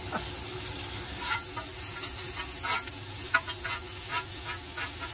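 Sliced ribeye steak with peppers and onions sizzling on a gas griddle, with irregular clacks and scrapes of a metal spatula and tongs as the meat is turned and stirred.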